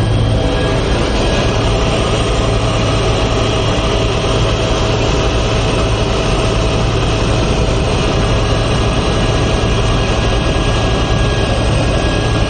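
Helicopter in flight heard from inside the cabin: its turbine engine and rotor run in a loud, steady drone with a strong low hum that does not change.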